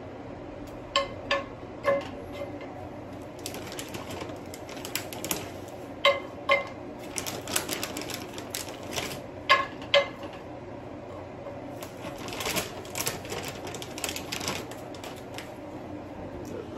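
Metal cookware clattering: a utensil clinks against a pan in a few short, ringing taps, mostly in pairs. Between them come stretches of crackling sizzle as chicken strips cook on a grill pan.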